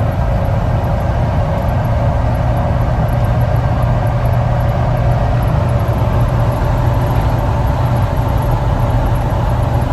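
A 2017 Jeep Wrangler JKU's 3.6-litre V6 running, a steady, even drone with no clear change.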